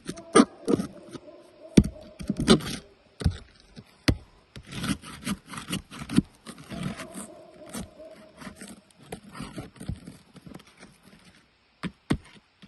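Hand tools scraping and tapping on roof shingles as the nails holding a shingle are worked loose: irregular sharp clicks and knocks with scraping in between.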